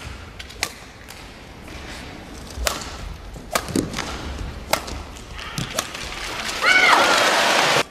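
Badminton rally: a feathered shuttlecock struck back and forth by rackets with sharp smacks about once a second, and shoes squeaking on the court floor in a loud run of chirps near the end.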